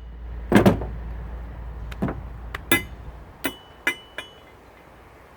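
Metal scrap parts being handled, giving a string of about eight sharp knocks and clicks. A few of them have a short metallic ring. A low steady hum underneath stops a little past halfway.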